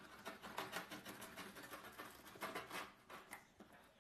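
Box cutter scratching and slicing through packing tape on a cardboard box: quiet, irregular scrapes, with louder bursts of scratching about half a second and two and a half seconds in.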